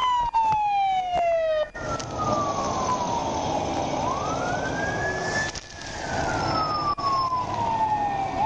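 Emergency vehicle siren on a slow wail, rising and falling about every four seconds. A second siren tone slides down and cuts off about a second and a half in.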